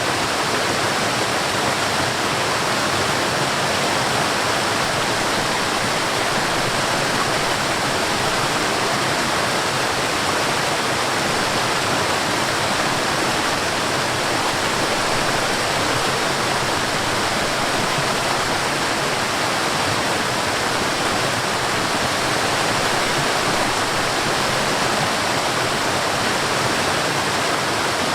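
Mountain stream and waterfall rushing, a steady unbroken wash of water noise.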